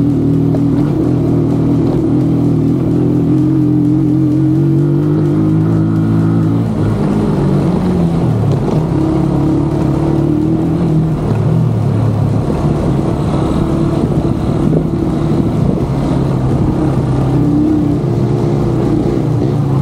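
Motorcycle engine running on a rough off-road trail. Its pitch rises and falls with the throttle, dipping around the middle.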